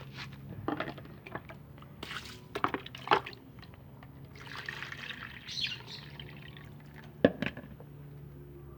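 Water pouring and dripping as a lovebird's drinking water is changed, with scattered knocks and clinks of handling; the loudest, a sharp knock, comes about seven seconds in. A steady low hum runs underneath.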